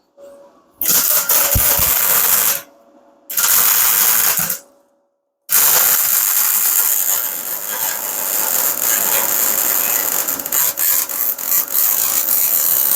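Wire-feed (MIG) welder arc sizzling and crackling as beads are laid on steel: a short weld of about two seconds, a shorter one of just over a second, then a long continuous run of about eight seconds.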